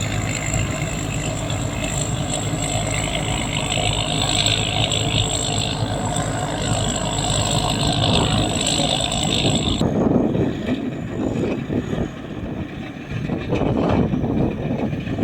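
Rice combine harvester's engine running steadily with a high whine. About ten seconds in the sound changes abruptly: the whine stops and the engine noise turns uneven.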